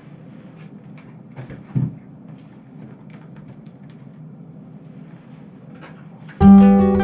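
Items being put back into a fridge: light clicks and knocks over a low steady hum, with one louder thump about two seconds in. Acoustic guitar music starts suddenly near the end.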